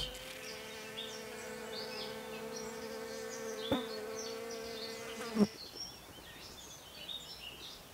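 A bee buzzing steadily in flight. The buzz bends in pitch and stops about five and a half seconds in.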